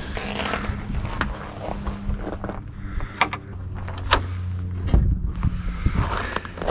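Wooden smokehouse door pushed shut and its metal barrel-bolt latch slid home: a few sharp clicks and knocks about three to four seconds in. Footsteps crunch on snow and gravel, over a steady low hum.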